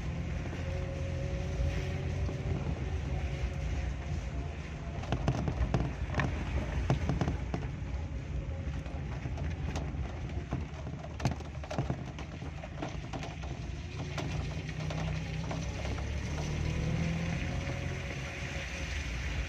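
Vehicle driving along a wet, rain-soaked road: a steady low rumble of engine and tyres, with an engine note that rises and falls, and scattered taps and knocks through the middle stretch.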